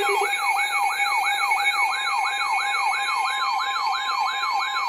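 Electronic alert siren sounding a rapid falling sweep, repeated about three times a second over a steady tone, opening an emergency alert broadcast.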